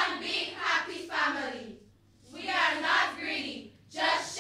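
A group of schoolgirls' voices speaking in unison, in phrases of a second or two with short pauses between.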